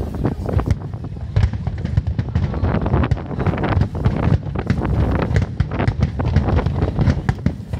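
Aerial fireworks bursting one after another: a dense, continuous run of bangs and crackles.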